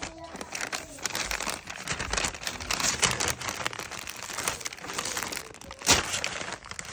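Continuous crinkling and crackling of something being crumpled and handled, with one sharp crack about six seconds in.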